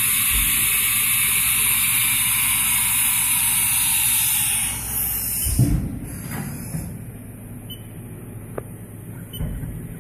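A steady loud hiss that cuts off about five seconds in, followed by a single thump, then a quieter steady machine hum.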